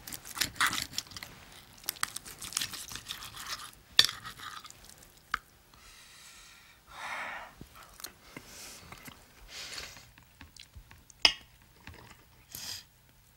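Knife and fork scraping and clinking on a plate as a slice of meat is cut, with many quick clicks in the first few seconds. Afterwards come chewing and a few scattered clinks of cutlery.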